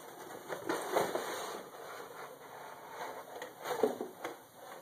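Cardboard mailing box and paper being handled: irregular rustling, scraping and small knocks as the box is tilted open and searched, louder about a second in and again near the end.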